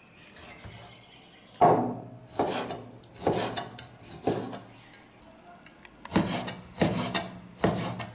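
Chinese cleaver slicing pig liver on a wooden cutting board: seven short scraping strokes, each ending on the board, starting about a second and a half in, with a pause in the middle.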